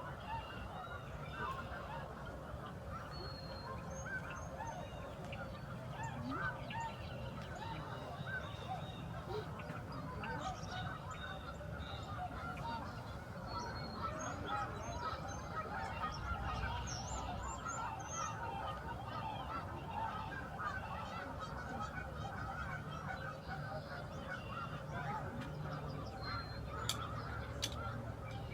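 A huge flock of migrating geese calling continuously, many honks overlapping into a dense chorus, over a steady low rumble.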